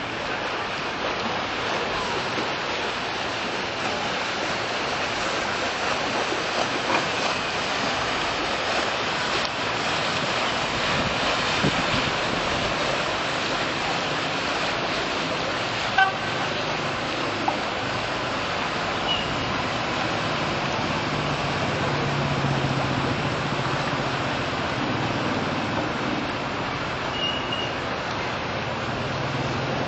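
Steady rush of river water and wind on the microphone, with the low hum of a passing river tour boat's engine growing in the second half. There is one brief click about halfway through.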